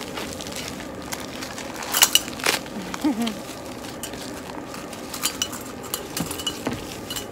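Plastic packaging crinkling and rustling in the hands as small parcels are unwrapped, with a few sharp crackles about two seconds in and more scattered later.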